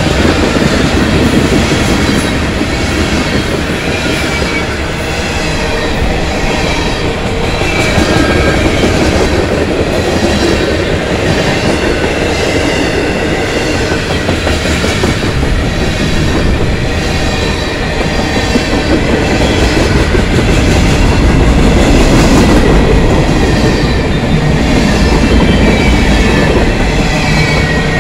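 CSX freight train of tank cars and covered hoppers rolling past, loud and steady: steel wheels rumbling on the rails with a regular clickety-clack over the rail joints.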